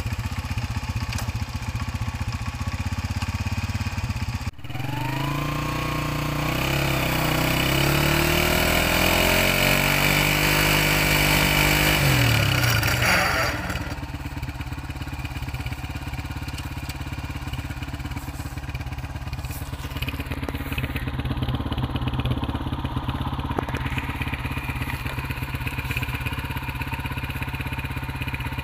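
Honda CG 125's single-cylinder four-stroke engine running. After a few seconds of steady idle it revs up in gear, its pitch rising steadily for about eight seconds as it spins the rear wheel on the tubewell pump's pulley, then drops back to a steady run.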